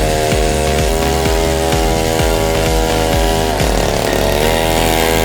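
Small 49cc minibike engine running at a fast idle with a buzzy, chainsaw-like note. The pitch dips briefly around the middle and then picks back up.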